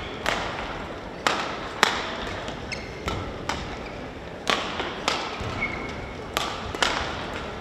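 Badminton doubles rally: a quick series of about nine sharp cracks of racket strings hitting the shuttlecock, mixed with players' footfalls on the court, each echoing briefly in the hall.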